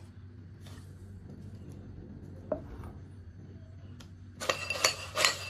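Fried crispy rice crust pieces being tossed in a bowl with seasoning: a single knock about two and a half seconds in, then from about four seconds in a dense, crackly rattle of the crisp pieces against the bowl. A steady low hum lies underneath.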